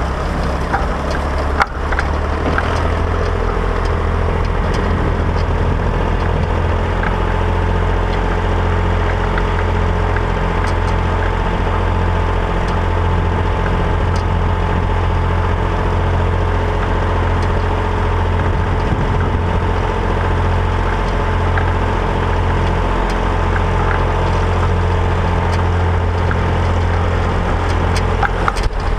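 Massey Ferguson 135 tractor engine running at a steady speed.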